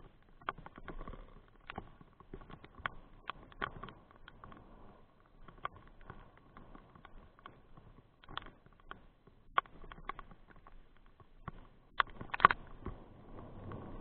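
Raindrops hitting a surface right by the microphone: irregular sharp taps, several a second, with the loudest hits near the end, over a faint steady hum.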